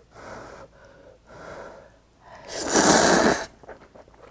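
A person slurping a mouthful of hot ramen noodles from army stew with one loud, long slurp about two and a half seconds in, after two softer rushes of breath.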